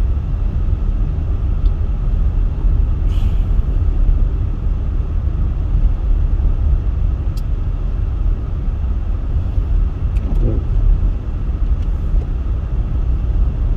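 Steady low rumble of a car driving on snowy roads, heard from inside the cabin.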